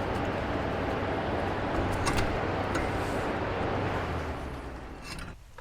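Lanair waste oil heater running: a steady burner-and-blower noise with a low hum, with a few light clicks of tool work over it. It fades near the end and then drops away suddenly.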